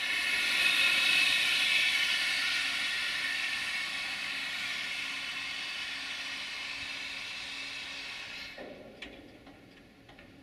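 Compressed air hissing out of a freight train's air brake system: a loud hiss that starts suddenly, fades slowly and cuts off about eight and a half seconds in, followed by a few faint ticks.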